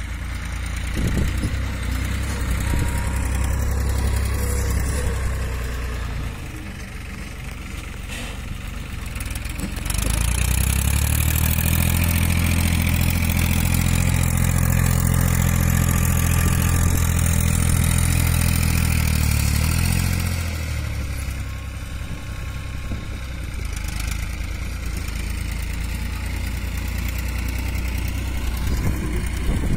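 New Holland tractor's diesel engine running steadily as it pulls a bund-making implement through ploughed soil. It steps up in level about ten seconds in and drops back about ten seconds later.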